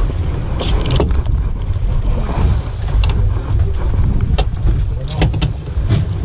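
Low rumbling noise aboard a fishing boat at sea, with a few sharp knocks and clicks scattered through it.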